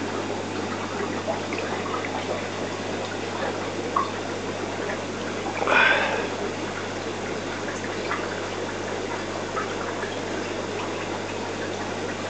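Steady running and trickling of an aquarium's circulating water, with a low steady hum underneath. There is a click about four seconds in and a brief louder noise about six seconds in.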